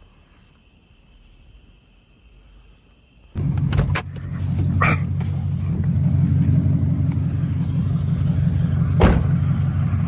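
A car engine running steadily, cutting in suddenly about three and a half seconds in after a quiet stretch, with a couple of sharp clicks over it.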